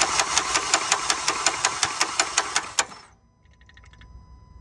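Starter cranking a 2012 Honda CR-V engine that turns over without firing, with a rapid, regular clatter on every turn; it stops abruptly about three seconds in. The mechanic traces the cranking noise to a failed timing-chain tensioner, a stretched timing chain and a faulty VTC actuator that have knocked the valve timing out.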